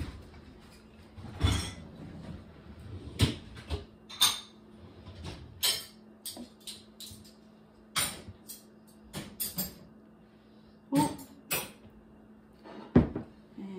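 A utensil scraping and tapping against a glass mixing bowl as batter is poured and scraped out of it, heard as scattered short clinks and knocks several seconds apart.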